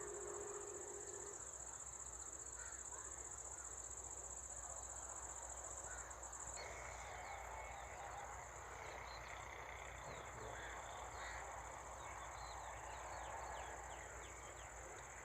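Countryside ambience: a steady high-pitched insect trill throughout, with birds chirping repeatedly in the second half. The insect sound changes abruptly about six and a half seconds in.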